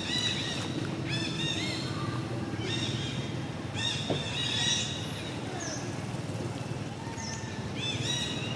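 Infant long-tailed macaque crying: bouts of short, high-pitched arched squeals, each a quick rise and fall in pitch, repeated several times, the distress calls of a baby held by a monkey that is not its mother. A few brief bird chirps come in between.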